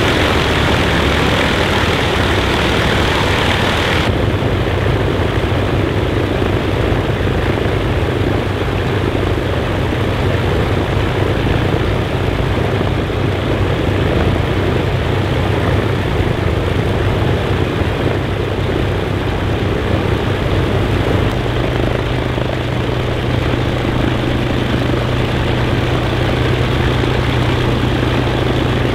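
Avro Lancaster's Merlin V12 piston engines running on the ground: a loud, steady, deep propeller-engine drone with a low hum underneath. The hiss in the highest range drops away about four seconds in, and the low hum grows steadier from about two-thirds of the way through.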